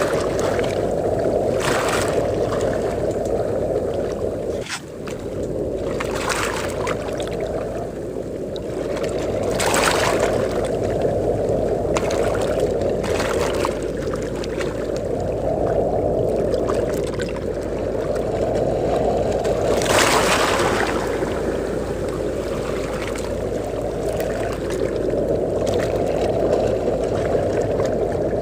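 Steady wind and surf at the seashore, with a heavy low rumble of wind on the microphone. Now and then a wave breaks or washes in with a brief splashy hiss, several times.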